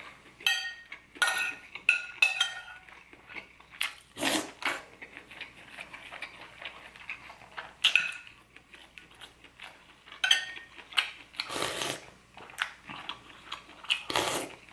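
Metal spoon clinking and scraping against a ceramic soup bowl, the clinks sometimes ringing briefly, with a few longer slurps of broth from the spoon and some chewing.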